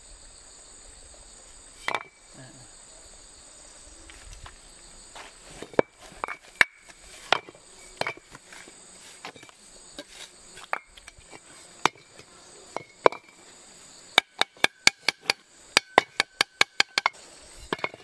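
Sharp tool taps and knocks on building material, scattered at first, then near the end a quick run of ringing taps, about five a second. A steady high-pitched insect drone, crickets or similar, runs underneath.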